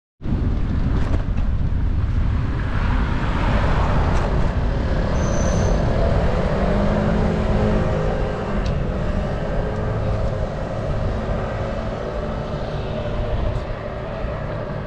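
Street noise recorded from a moving bicycle: a steady rumble of wind on the microphone mixed with passing car traffic, starting abruptly. A brief high squeak about five seconds in.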